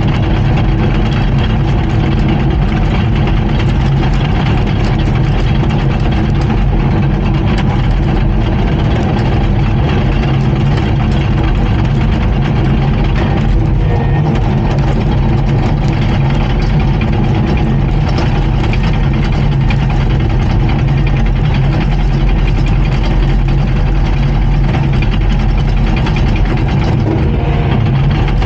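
Komatsu D39PX bulldozer's diesel engine running steadily at a loud, even pitch.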